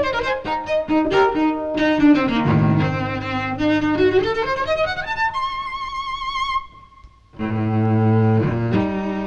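Solo cello played with the bow: quick running notes, then a climb over a held low note up to a high note sung out with vibrato. The high note thins away to a brief gap about seven seconds in, after which low double-stopped chords begin.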